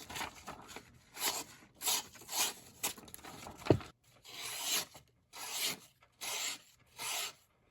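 A Benchmade 707BK knife blade drawn in a series of short scraping strokes, about one every 0.7 s in the second half, with a single sharp click a little under four seconds in.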